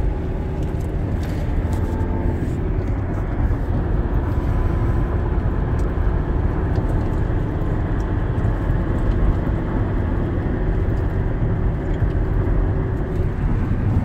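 Steady road and engine noise inside a moving vehicle's cabin: a constant low rumble that keeps an even level throughout.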